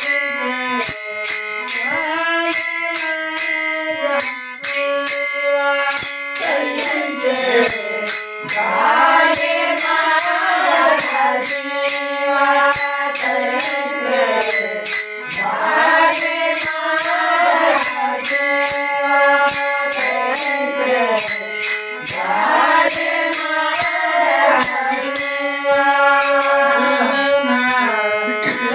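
A woman singing a Marathi abhang, a devotional song, in long held, gliding notes over sharp clicks keeping a steady beat.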